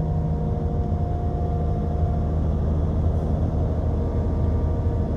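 Komatsu PC120 excavator's diesel engine running steadily, with a higher whine that fades out about halfway through, as the machine is used to lift a hydraulic pump.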